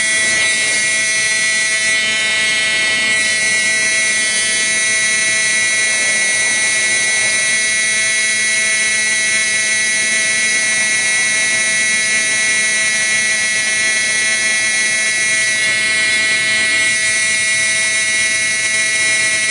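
Small plug-in electric fuel pump running steadily with a high whine, pumping gas into an RC car's fuel tank.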